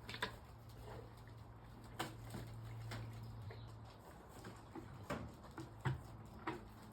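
Faint scattered knocks and clicks, about half a dozen, over a low steady hum.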